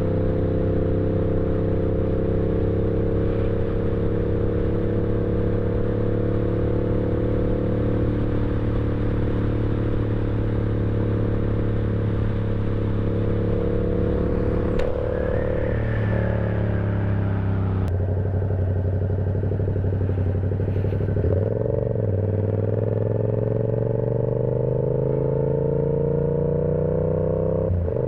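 Yamaha R7 motorcycle engine heard while riding. It holds a steady cruise with the pitch slowly sagging, then after a few gear changes around two-thirds of the way through it pulls up again, rising steadily in pitch.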